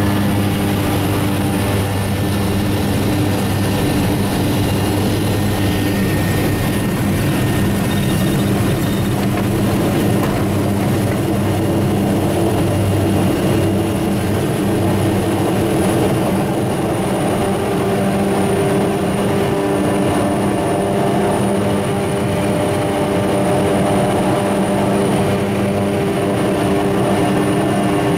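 Light single-engine propeller plane's engine and propeller droning steadily, heard from inside the cockpit, through the takeoff roll on a grass strip and the climb-out.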